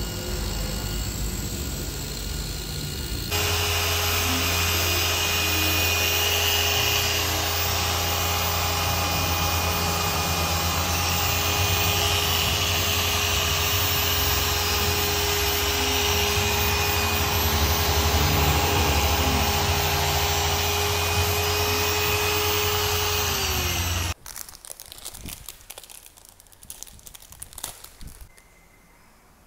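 Electric polishing machine running steadily with a wool pad buffing compound into a helmet's painted shell during paint correction: a steady motor hum with a constant whine, over the rub of the pad. It gets louder about three seconds in. A few seconds before the end it dips in pitch and stops, leaving faint handling clicks.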